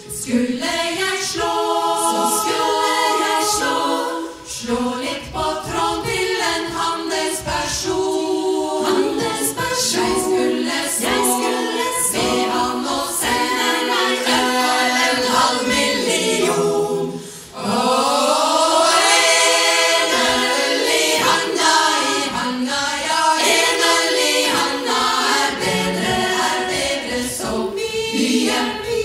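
Women's choir singing into microphones, with two short breaks in the sound, about four seconds in and again about seventeen seconds in.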